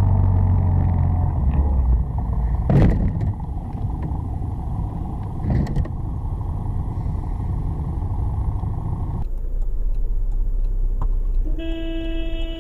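Road traffic and engine rumble, with two sharp knocks about three seconds apart. Near the end a car horn sounds once, a steady tone of just over a second.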